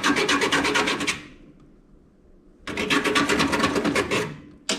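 Toaster oven heating element being scraped to see what metal it is, a fast rasping chatter of many strokes a second in two bouts of about a second and a half each. A short sharp click comes near the end.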